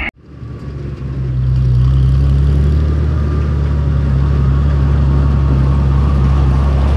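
Small garden tractor's engine idling with a steady low hum, fading up over the first second and a half and then holding level.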